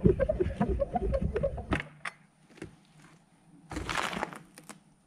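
Clicks from the handle and latch of a steel storm-shelter door about two seconds in, then a short scraping rush as the door is pushed, near four seconds in.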